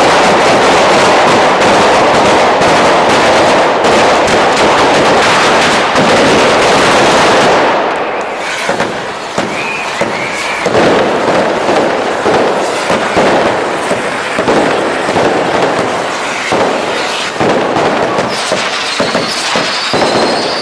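A traca, a long string of firecrackers, going off in a dense, unbroken rattle of bangs for about the first seven seconds, then thinning to separate bangs over the hiss of firework fountains as the falla catches fire.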